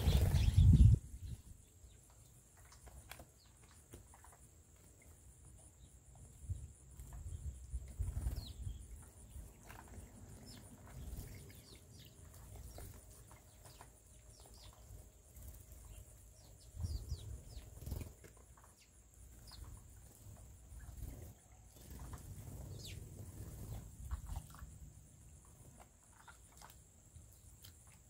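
House sparrows giving short, high chirps scattered throughout, over bursts of low rustling noise, loudest in the first second.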